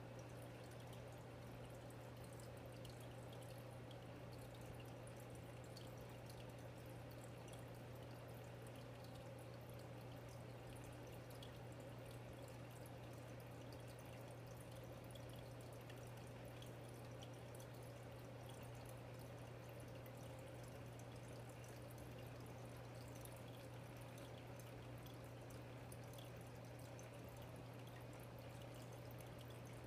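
Aquarium running: a faint, steady low hum from its water pump, with light trickling and dripping of circulating water.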